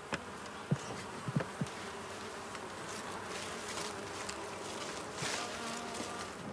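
Africanized honeybees buzzing steadily around wooden hive boxes, with a few light knocks in the first couple of seconds as the boxes are handled.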